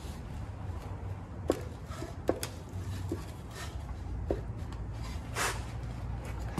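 Scattered sharp metal clicks and knocks, about five in all and mostly in the first four seconds, from hands working a gummed-up, unbolted part loose on the steel dash console of a Sears Suburban garden tractor. There is a short scraping rustle near the end, over a steady low hum.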